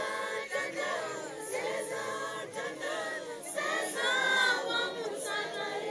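A group of children singing together as a choir, many voices at once.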